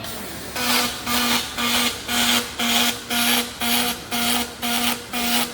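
Robotic welding arc buzzing in a regular pulse about twice a second, starting about half a second in.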